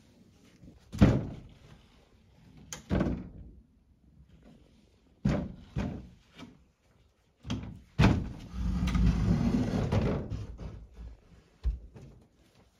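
Large old wooden door panels being handled on wooden floorboards: a string of hollow wooden knocks and thuds, the loudest about a second in. In the second half there is a scrape lasting about two seconds as a panel slides over the boards.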